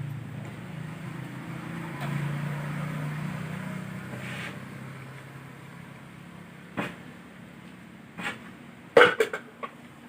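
A low engine hum fades away, then a few sharp knocks come near the end, the loudest a quick cluster about nine seconds in.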